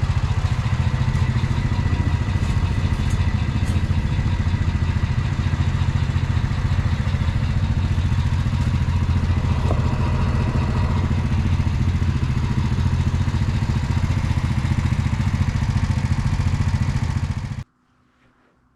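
Quad (ATV) engine running steadily at an even speed, then the sound cuts off abruptly near the end.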